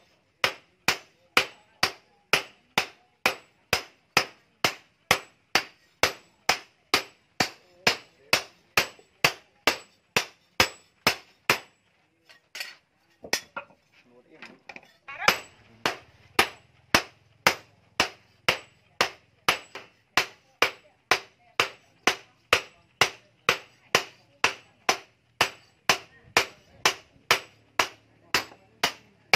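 Blacksmith's hand hammer striking a chainsaw bar being forged into a knife blade on a small post anvil: sharp metal-on-metal blows in a steady beat of about two a second. Near the middle the beat stops for a few seconds, with only a few scattered strikes, then resumes.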